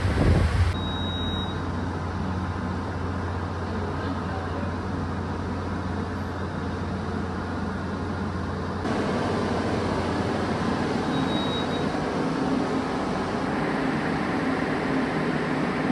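Hurricane wind gusting on the microphone for about the first second, then a steady rushing noise of storm wind and rain with a low hum underneath, which changes abruptly about nine seconds in.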